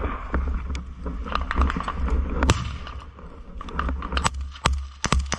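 Irregular sharp cracks of small-arms gunfire, single shots at uneven spacing with the loudest about halfway through and several close together near the end, over a low rumble of wind and handling noise on the microphone.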